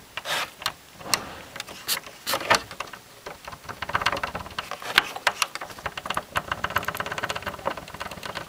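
Control knob of a valve radio being pushed and worked onto its shaft by hand: a few sharp clicks and scrapes, then from about four seconds in a fast run of small ticks like a rattle.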